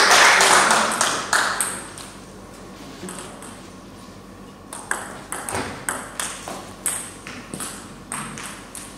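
Table tennis rally: the ball is struck by the paddles and bounces on the table, a quick run of about a dozen sharp ticks at roughly three a second, starting about five seconds in and ending near the end. Before it, a loud wash of noise from the hall fades away over the first two seconds.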